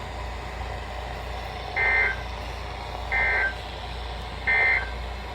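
Emergency Alert System end-of-message code: three short bursts of SAME data tones, each a harsh two-pitch digital screech, about a second apart, over a steady low hum and hiss.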